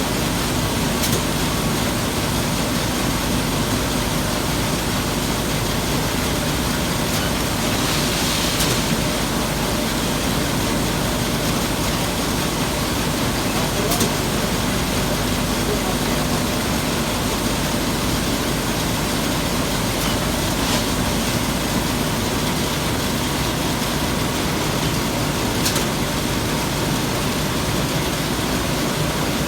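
Semi-automatic packaging machine running: a steady mechanical noise with faint clicks now and then and a short hiss about eight seconds in.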